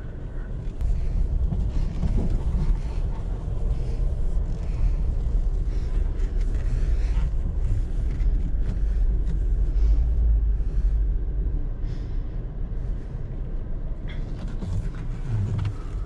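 Land Rover Discovery Sport driving over a rough dirt track, heard inside the cabin: a steady low rumble of tyres, suspension and engine, with a few light knocks.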